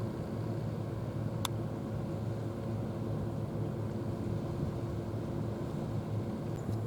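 A steady motor drone with a low hum, with a single sharp click about a second and a half in.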